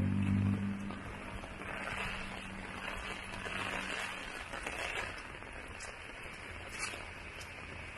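Heavy rain falling, a steady hiss that swells a little in the middle. A vehicle engine's low hum fades out in the first second.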